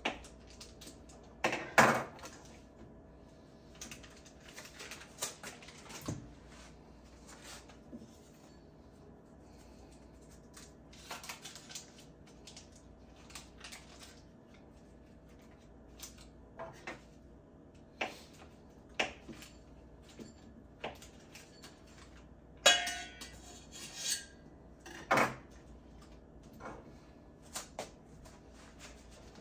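Kitchen utensils and dishes clinking and knocking on the countertop as butter is sliced and a hand mixer is handled: scattered taps and clicks, with one ringing metallic clink about three quarters of the way in.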